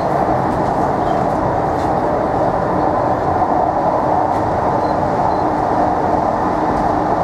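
Tyne & Wear Metro train running steadily along the line, heard from inside the car: a continuous rumble of wheels on rail with a steady hum running through it.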